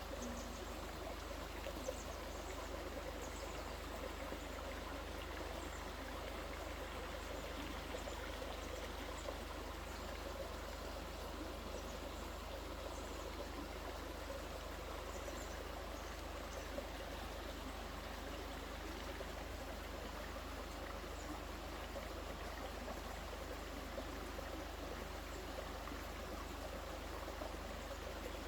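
Steady flow of a stream, with faint high bird chirps here and there.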